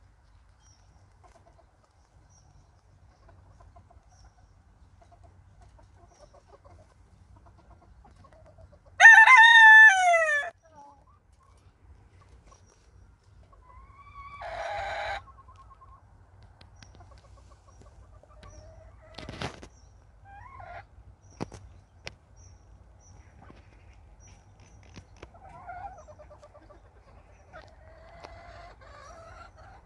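Wyandotte rooster crowing once, about nine seconds in: a loud call of about a second and a half whose pitch falls away at the end. A shorter, rougher call follows a few seconds later, and hens cluck faintly around it, with one sharp knock near the middle.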